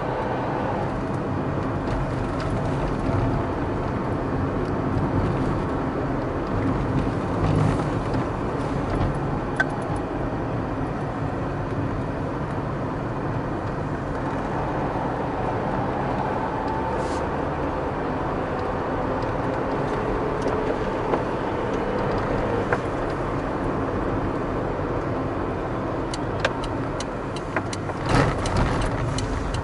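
A car driving through city streets, with steady engine and tyre noise. A burst of knocks and rattles comes near the end.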